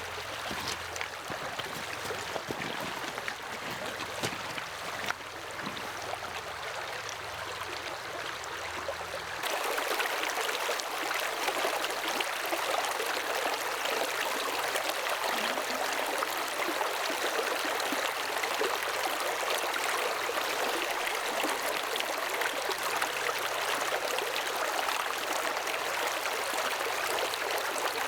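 Small river rushing over rocks, a steady flow of water. About a third of the way in the sound jumps to a louder, brighter rush, as from closer to the water.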